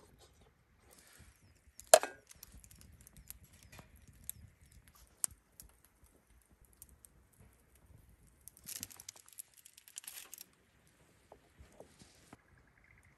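Handling noises: scattered light clicks and knocks, with one sharp knock about two seconds in and a stretch of rustling near the nine-to-ten-second mark.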